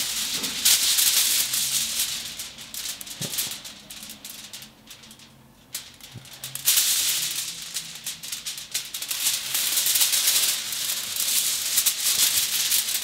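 Sheet of aluminium kitchen foil crinkling and rustling as it is handled and crumpled, with a quieter lull of a couple of seconds in the middle before the crinkling picks up again.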